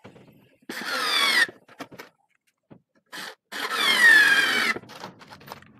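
Daewoo 3.6 V cordless lithium screwdriver running in two short bursts of about a second each, the first just under a second in and the second about three and a half seconds in. Its whine falls in pitch during each run.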